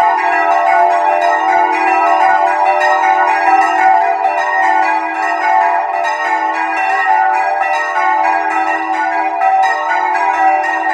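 Several church bells swung by hand in the Bolognese manner, rung together in a loud, continuous peal: rapid overlapping clapper strikes over sustained ringing tones.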